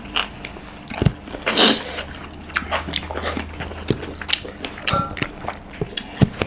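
Close-up eating sounds: chewing and wet lip-smacking with scattered sharp clicks as curry and rice are mixed by hand and eaten off steel plates, with a short breathy hiss about one and a half seconds in.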